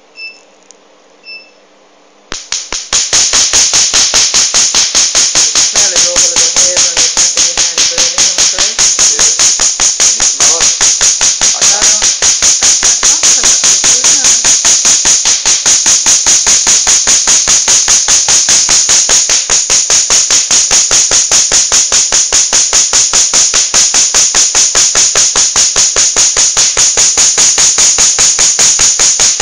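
Two short beeps about a second apart from a tattoo-removal laser. Then, about two seconds in, the laser starts firing: a steady, rapid train of loud, sharp snaps, many per second, as it pulses on the skin.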